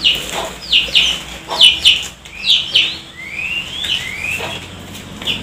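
A bird chirping over and over: short high notes that sweep downward, mostly in pairs, with a couple of rising notes about three seconds in.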